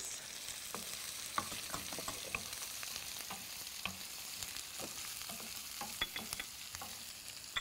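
Onions, cashews, green chilies and curry leaves sizzling in hot oil in a frying pan, with a steady hiss and scattered light taps and scrapes of a wooden spatula stirring them.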